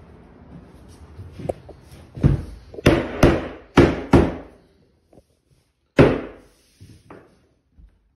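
Click-lock flooring planks with padded backs being knocked and pressed into place on a plywood subfloor: a run of sharp knocks, five close together around the middle and one more a couple of seconds later, with weaker taps either side.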